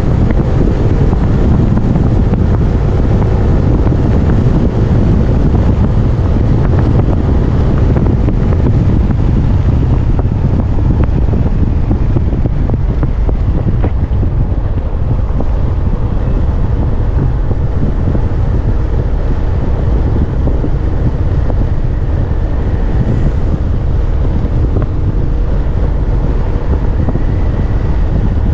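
Steady, heavy wind buffeting on the microphone from riding a motor scooter at speed, with the scooter's engine running underneath.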